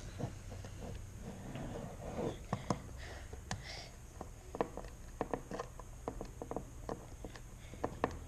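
Irregular small clicks and taps of a Torx screwdriver and metal parts while the last screws are worked out of a hard drive's case, over a steady low hum.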